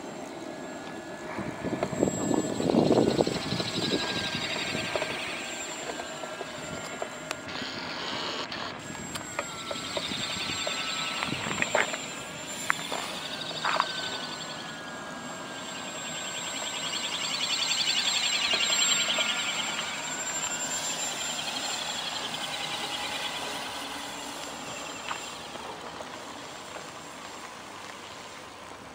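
Radio-controlled model autogyro flying overhead: its motor and propeller hum with a steady whine, swelling and fading as it flies about, loudest a couple of seconds in and again past the middle. A few sharp clicks come around the middle.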